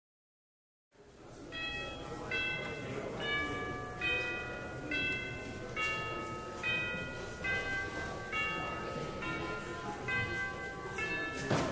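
Church bells ringing a slow run of single notes, about one strike every three-quarters of a second, each note ringing on into the next; one sharp knock near the end.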